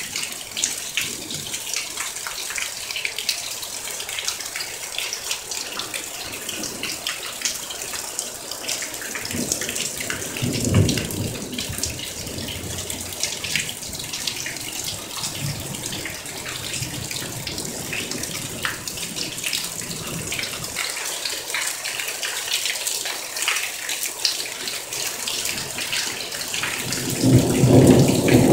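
Heavy monsoon thunderstorm rain: a steady hiss of downpour with close drips and splashes. Low thunder rumbles about ten seconds in and swells again near the end.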